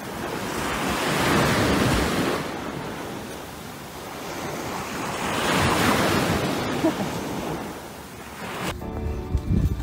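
Sea surf washing onto a beach, with wind buffeting the microphone; the noise swells twice, about a second in and again around six seconds. Music starts near the end.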